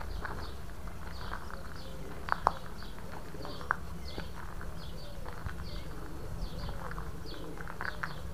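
Birdsong: small birds chirping in short repeated pairs over low cooing calls from pigeons, with a steady low rumble beneath. A few sharp clicks a little over two seconds in and again near four seconds.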